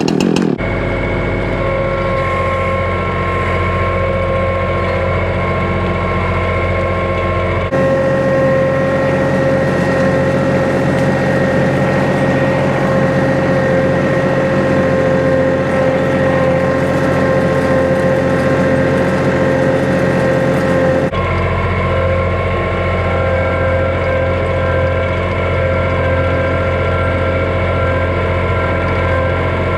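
Diesel engine of a John Deere 2032R compact tractor running steadily. Its note changes abruptly twice, at about eight seconds and again about twenty-one seconds in.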